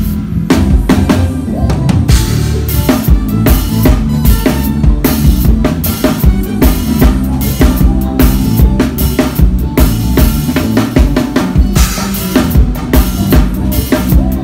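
Drum kit played in a busy groove, with kick drum, snare, rimshots and cymbals, over a band's bass line.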